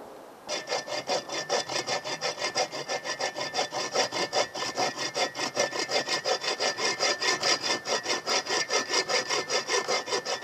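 Hand saw cutting through a dead branch in quick, steady back-and-forth strokes, about four a second. The sawing starts about half a second in and stops right at the end.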